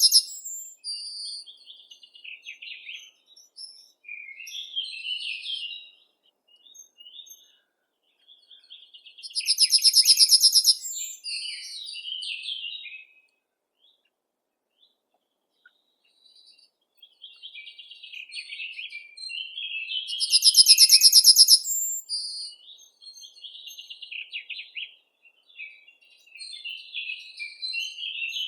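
Songbirds singing: a loud, fast, buzzy trill comes three times, about ten seconds apart, with softer chirps and short phrases in between and a pause of a few seconds around the middle.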